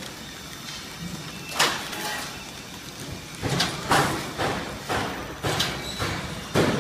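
Semi-automatic pillow packaging machine running: a steady mechanical hum with sharp clacks at irregular intervals of half a second to two seconds.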